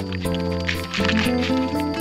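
Background music: a melody of held notes over a steady beat.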